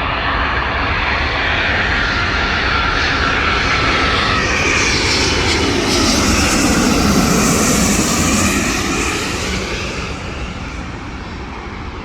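Jet airliner on final approach passing low overhead. The engine noise swells to a peak about seven seconds in, with a whine that falls in pitch as it passes, then fades away.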